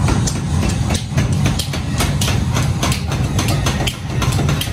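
Forge power hammers running with a steady low drone, over a quick, uneven run of sharp strikes, about three or four a second.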